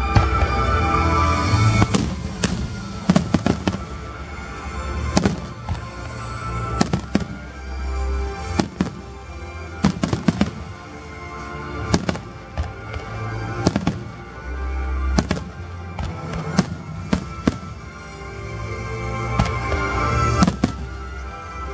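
Aerial fireworks bursting in an irregular string of sharp bangs, some single and some in quick clusters, over loud music with a heavy bass.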